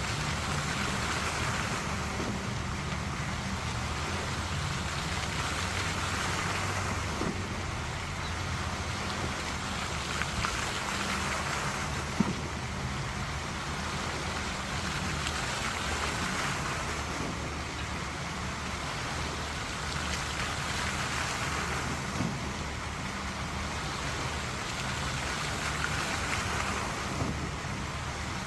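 Water jets of a dancing fountain spraying up and splashing down into its pool: a steady, rain-like hiss of falling water that swells and eases every five seconds or so as the jets rise and fall.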